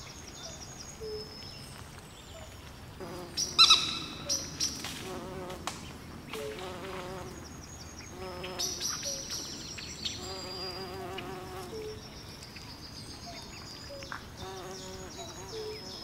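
Outdoor pond ambience: small birds chirping with many short high notes, and an insect buzzing close to the microphone, rising and falling in pitch. A louder, sharper bird call sounds about three and a half seconds in.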